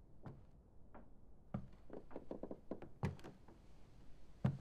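Footsteps on wooden floorboards: a series of uneven, soft thuds and knocks, with a quick run of lighter taps in the middle and the loudest thud near the end.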